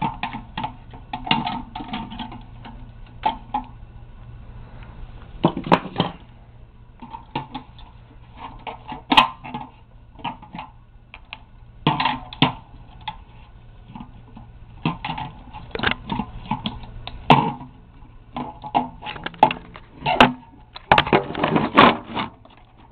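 Irregular knocks, clicks and clatter of objects being handled and moved about, over a faint steady low hum.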